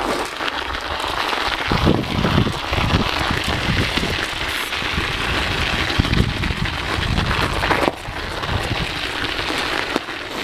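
Mountain bike riding over a packed-snow trail: a steady crackling hiss from the tyres on the snow, with irregular low thumps.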